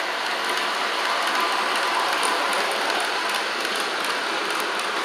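Model subway train running along an elevated track, a steady whir and rattle of its motor and wheels.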